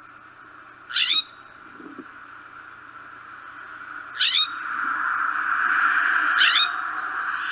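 California scrub jay giving three short, loud calls a few seconds apart, each falling in pitch, over a steady background hum that swells in the second half.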